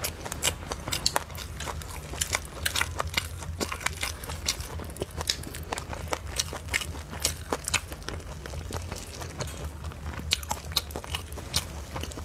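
Close-up eating sounds of a person biting and chewing a roasted chicken wing: a dense, irregular run of small wet clicks and crunches.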